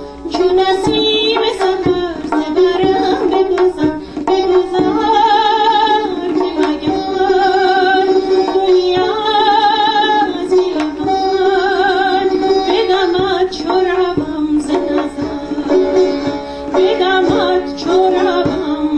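Persian classical song. A tar, a long-necked Persian lute, plays plucked phrases over a hand drum for the first few seconds. A woman then sings long, wavering phrases with heavy vibrato over both instruments, and the tar and drum carry on alone for the last few seconds.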